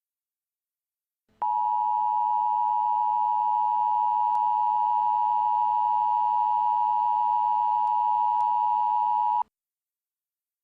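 Emergency Alert System two-tone attention signal: a steady dual tone, two close pitches just under 1 kHz, held for about eight seconds. It starts about a second and a half in and cuts off sharply. It is the alarm that warns of the spoken emergency message, here a tornado warning, that follows.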